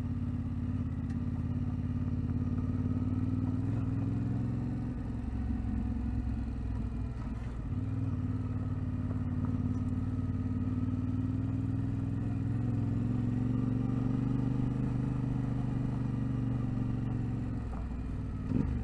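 A vehicle engine running steadily at low revs, with small rises and falls in pitch, while driving slowly over a rough unsurfaced track.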